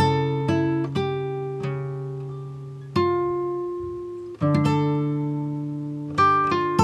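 Background music on plucked acoustic guitar: slow single notes and chords, each ringing out and fading before the next is plucked.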